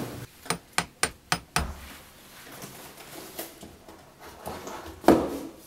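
Hammer striking a tiled wall five times in quick succession, about four blows a second, followed by quieter handling sounds and a single louder knock near the end.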